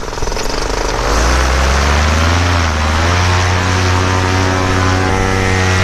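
Paramotor's two-stroke engine and propeller throttled up to full power for takeoff. The pitch climbs over the first three seconds, then holds high and steady.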